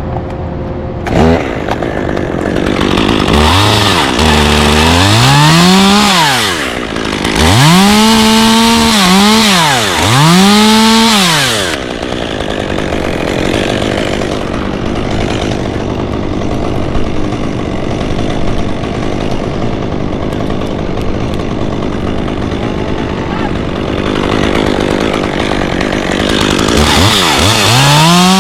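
Stihl chainsaw revving up and down several times, then running steadily under load for about fifteen seconds as it cuts through redwood, and revving again near the end.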